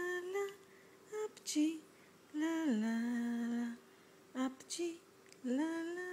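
Someone humming a slow tune in long held notes, with brief soft sounds between the phrases.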